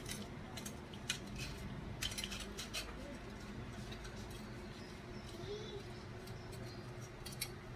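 Faint clicks and light scrapes of small tools and parts being handled while dirty computer components are cleaned, over a steady low hum. The clicks come in a cluster over the first few seconds, with one more near the end.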